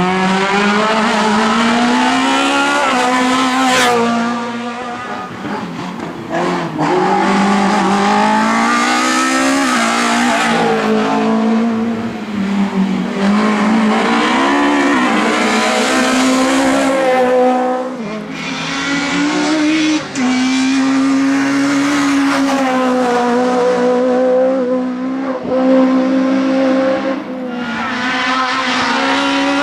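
Race car engine run hard, its pitch climbing and dropping again and again through gear changes and lifts, with brief tyre squeal.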